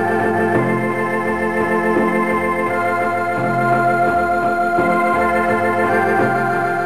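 Two-manual home electronic organ played with both hands: sustained chords held over a bass line that moves to a new note about every second.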